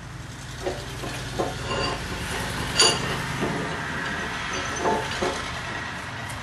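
Old iron blacksmith's leg vise being worked by hand, giving off a series of metal clinks and knocks. One sharp, ringing clink comes about three seconds in, over a steady low hum.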